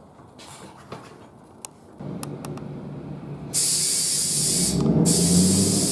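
Compressed air hissing into a freshly mounted tire as it is inflated to seat the beads, in two loud stretches with a short break between them, over a low steady hum. The beads have not yet seated.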